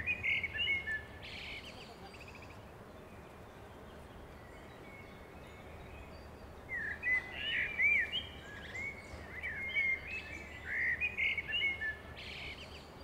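Small birds chirping in clusters of quick, curving chirps over a faint steady hiss. The chirps come in the first second or so, then again from about seven to twelve seconds in.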